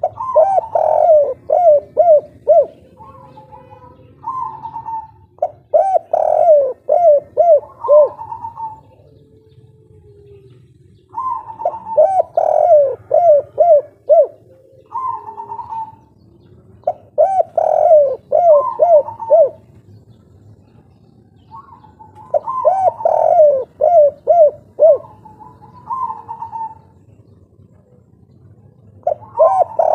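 Spotted dove (tekukur) singing its cooing song, the 'kuk 3' type with three closing notes, over and over. About six phrases, each a rapid run of coos followed by a few short, higher coos, with brief pauses between them.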